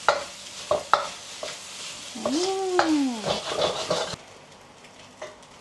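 Garlic butter fried rice being stir-fried in a hot pan with a flat spatula: sizzling, with the spatula clacking and scraping against the pan, loudest near the start and about a second in. A short pitched whine rises and falls in the middle, and the sizzle stops abruptly about four seconds in.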